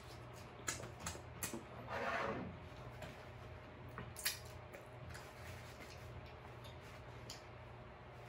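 Quiet mouth sounds of eating king crab legs in sauce: a few short wet lip-smacking clicks and a brief slurp about two seconds in, as sauce is sucked off the fingers and crab meat chewed.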